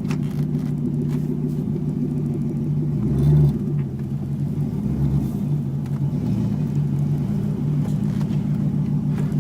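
1987 Mustang GT's 5.0-litre V8 running steadily at constant revs while still cold and warming up, with a short louder low swell about three seconds in.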